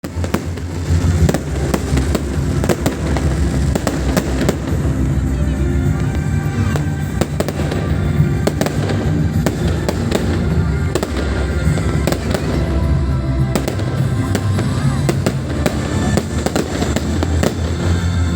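New Year's fireworks: a continuous barrage of bangs and firecracker crackling with a heavy low rumble underneath.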